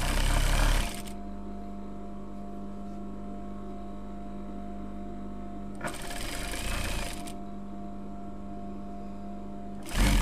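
Electric sewing machine stitching a seam in short runs: a burst at the start, another about six seconds in lasting a second and a half, and a third starting near the end, over a steady motor hum.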